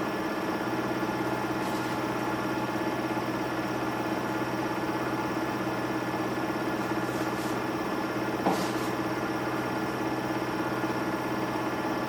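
Samsung Eco Bubble washing machine running with a steady motor hum, and a single short knock about two-thirds of the way through.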